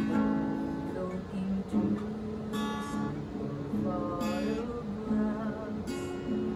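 Black Maestro steel-string acoustic guitar strummed in chords, the chords changing every second or two. A woman's voice sings along with it in the second half.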